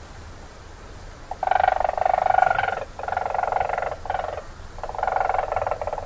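Weasel calls during a mating attempt between a male and a female: a run of rapid, pulsing calls in four bursts of about a second or less, starting about a second and a half in, the third burst shorter.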